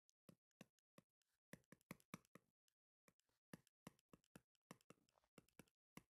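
Faint, irregular taps and clicks of a stylus on a tablet screen while handwriting, several a second.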